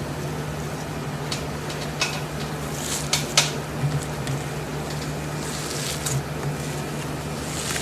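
Slime being squished and pressed by hand, giving scattered sharp clicks and pops with crackly hiss, over a steady low hum.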